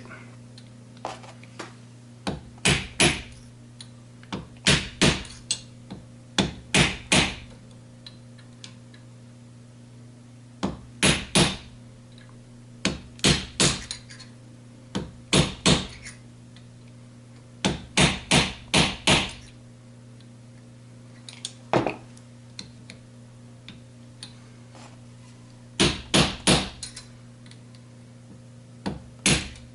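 Hammer taps driving a part, likely the 2-4 synchro hub, down onto the splined mainshaft of a Ford 2000E gearbox. The sharp taps come in quick groups of two to four every second or two, over a steady low hum.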